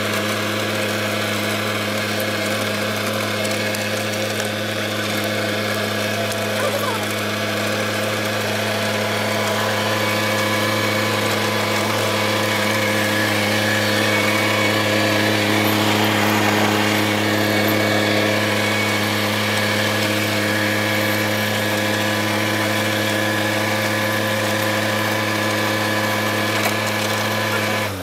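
Kubota B2441 compact tractor's three-cylinder diesel engine running steadily under load at about 2000 rpm in low second gear, driving a 24-blade, 4-foot Rotoking rotavator through the soil. The sound cuts off suddenly at the very end.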